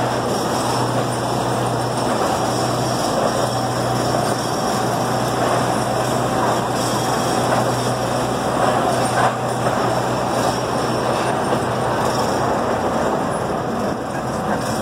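Chance Rides C.P. Huntington miniature train running steadily along the track. Its engine hums and its wheels clatter on the rails, heard from the car just behind the locomotive.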